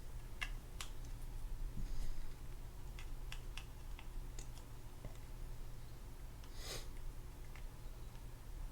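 Scattered small metal clicks and taps from a screwdriver and reel parts as a screw is worked into the bail arm of a Penn Spinfisher 8500SS spinning reel, with a short scrape about two-thirds of the way through over a steady low hum.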